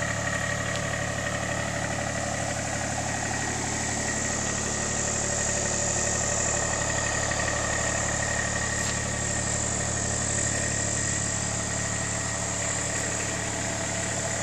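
John Deere mini excavator's diesel engine idling steadily.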